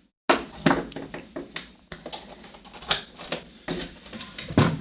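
Irregular clicks, taps and knocks as a USB-to-DMX converter and its cable are handled on a hard desktop and plugged into a plastic USB hub. The sharpest knocks come about three seconds in and just before the end.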